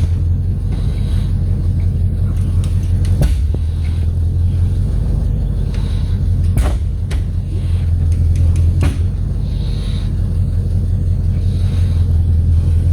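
An engine running steadily with a deep, even hum, with a few sharp knocks now and then.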